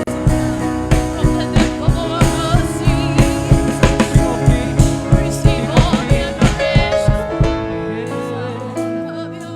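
Gospel worship music from a live band: a drum kit keeping a steady beat under sustained keyboard chords, with a singing voice. About seven seconds in the drums drop out and the held chords carry on more quietly.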